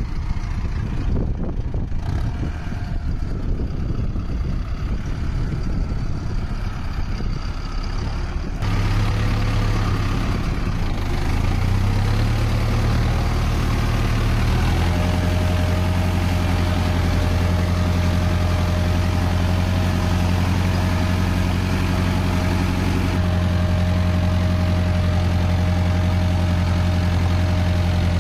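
Mahindra Arjun Novo 605 DI 4WD tractor's four-cylinder diesel engine running at a steady speed as it drives through mud. At first it is farther off and mixed with wind noise. About eight seconds in it becomes a close, steady drone, heard from the driver's seat.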